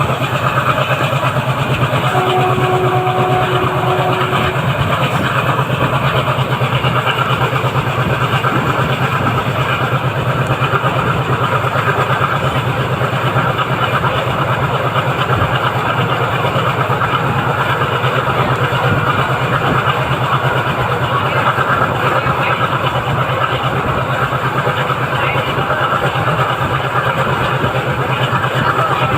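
ALCO WDM3A diesel-electric locomotive, its turbocharged V16 ALCO 251 engine chugging under load in a steady, rapid rhythm.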